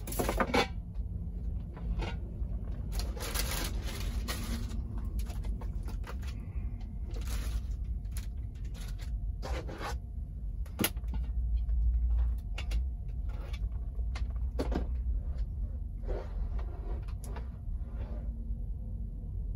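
Packing noise as a slow cooker is unpacked: a styrofoam insert rubbing and squeaking, and scattered knocks, scrapes and rustles of handled packaging and the cooker, over a steady low rumble.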